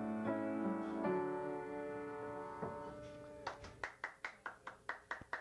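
Gulbransen upright piano playing a few slow chords that ring out and die away. About three and a half seconds in, a quick run of short sharp taps starts, about five a second.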